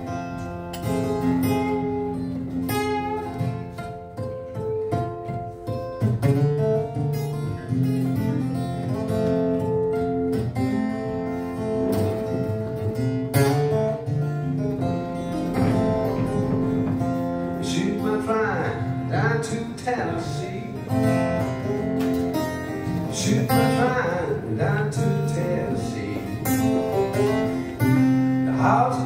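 Solo acoustic guitar fingerpicking a ragtime blues, with a man's singing voice coming in from about two-thirds of the way through.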